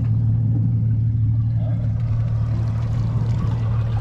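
Yamaha outboard motor idling, a steady low hum that holds one even pitch.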